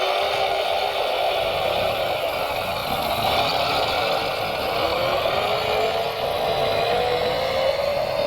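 Electric motor and gearbox of a radio-controlled model vehicle whining, its pitch dipping and then slowly rising as the speed changes.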